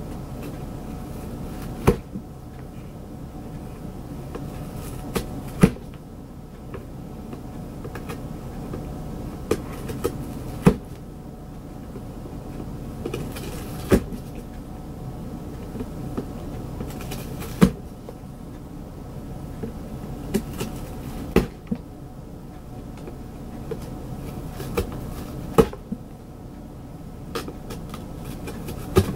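A cat biting and tearing at the edge of a cardboard box: short, sharp cardboard snaps and rips come irregularly, every one to four seconds, over a steady low hum.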